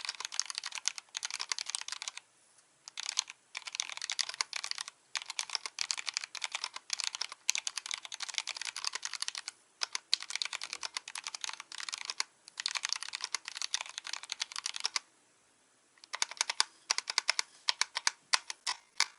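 Typing on a full-aluminium Archon FX mechanical keyboard with Kailh Box Black linear switches in a stainless steel plate, under Cherry-profile Mstone Prima2 keycaps. Fast runs of keystrokes are broken by short pauses, with a longer pause about fifteen seconds in, then slower, more separate keystrokes near the end.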